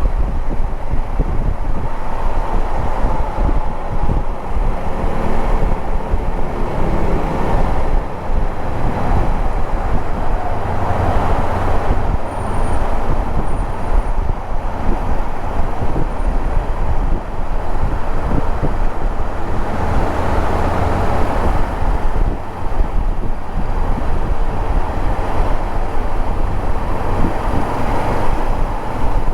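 Riding sound of a 2014 Honda CB500X in heavy highway traffic: the bike's 471 cc parallel-twin engine running under a steady rush of wind and road noise, with the surrounding traffic.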